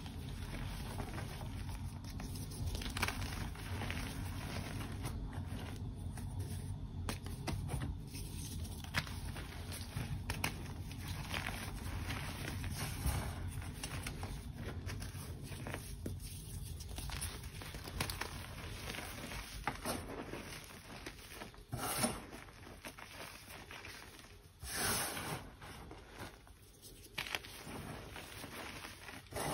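Hands crumbling and crushing a soft, powdery green chalk slab and squeezing the loose powder: close, continuous crackling and crunching with the patter of falling bits, and a couple of louder crunches in the last third.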